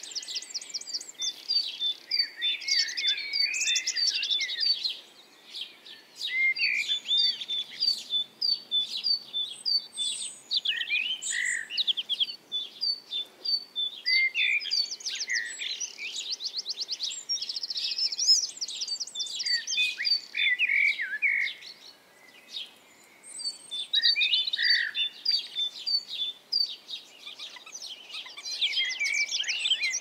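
Songbirds singing in long bouts of rapid trills and high chirping notes, with short pauses about five seconds in and again a little after twenty seconds.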